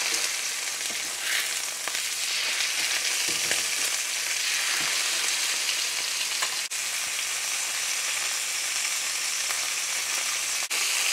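Pork chops sizzling in hot olive oil in a stainless steel skillet as they brown, a steady frying hiss.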